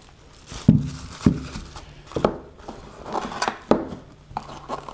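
Cardboard boxes handled on a tabletop: several sharp knocks with light scraping in between, as a small accessory box is lifted out of a long cardboard packing box.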